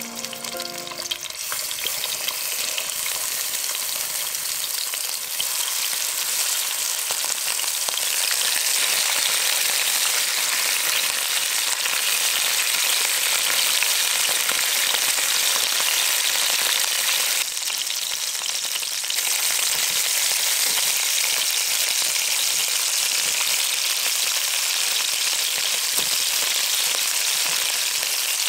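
Chicken drumsticks sizzling as they fry in hot oil in a pan, a steady crackling hiss that grows louder over the first several seconds as more pieces go in. It dips briefly a little past halfway, then carries on evenly.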